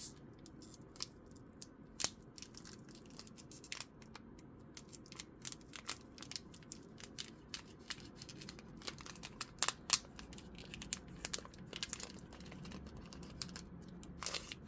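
Foil booster pack wrapper being torn open and crinkled by hand as a Pokémon card pack is opened: a run of small crackles and clicks, busiest about ten seconds in.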